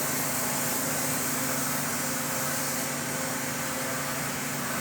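Steady machinery running: an even hiss over a low, constant hum that does not change.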